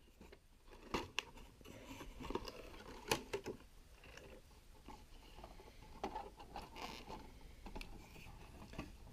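Cardboard toy box being opened by hand, its folding tabs worked loose. The packaging rustles and crackles, with irregular sharp clicks and snaps, the loudest about one and three seconds in.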